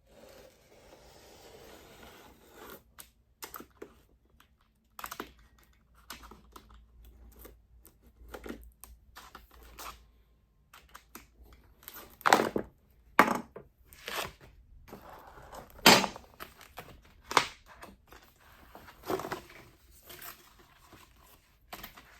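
Plastic window film being cut and handled: irregular crinkling and sharp crackles, with a handful of louder snaps in the second half.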